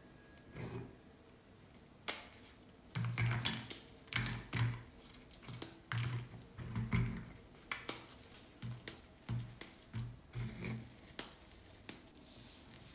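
Crisp plain round biscuits snapped into small pieces by hand over a ceramic plate: a string of irregular dry cracks, each with a dull knock, starting about two seconds in and thinning out near the end.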